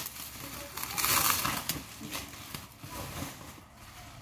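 Plastic bubble wrap crinkling and rustling as hands handle and unwrap a wrapped parcel, loudest about a second in and quieter toward the end.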